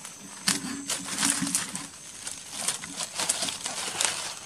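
Dry leaf litter and twigs on a forest floor crackling and rustling in irregular sharp snaps, as something is moved about on the ground. A faint steady high insect drone sounds behind them.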